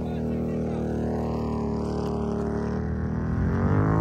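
Side-by-side UTV engine running steadily, then rising in pitch near the end as it revs.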